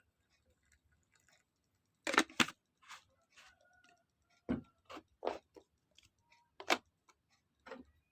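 Kitchenware being handled: a series of about ten sharp clicks and knocks at irregular intervals, the loudest a pair about two seconds in, a few with a brief ringing clink.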